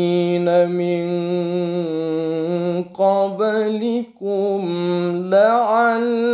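A man's voice reciting the Quran in melodic tilawah in maqam Bayyati, holding long drawn-out notes. There are brief breaths about three and four seconds in, and the pitch lifts about five seconds in.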